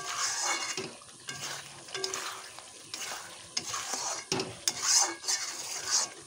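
Flat metal spatula stirring and scraping a thick potato, onion and tomato masala around a blackened iron kadai, the masala sizzling as it is sautéed down with a little water. The scrapes come irregularly, loudest near the end.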